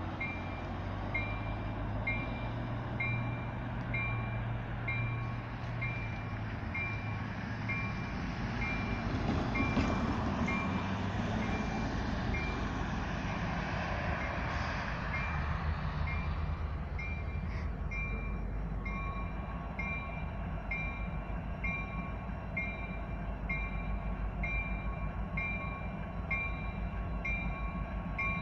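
A railroad grade-crossing bell rings steadily, about once a second. Around the middle, an ambulance drives past, its engine and tyre noise swelling and then fading.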